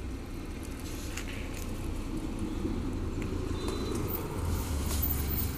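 A low steady hum with a few light clicks of wire terminals being handled on a tractor's light switch.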